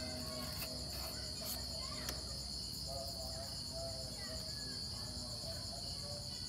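Crickets trilling steadily in the background, a continuous high-pitched pulsing chirr, with a few faint clicks in the first couple of seconds.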